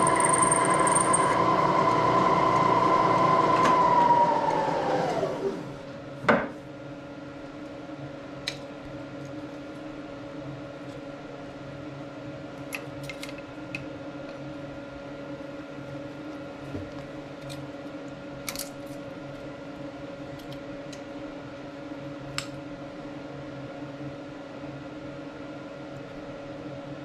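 Moore jig borer spindle running steadily, then switched off and winding down, its pitch falling over about a second and a half. A single knock follows, then a steady low hum with scattered light metallic clicks as the chuck is loosened and the part handled.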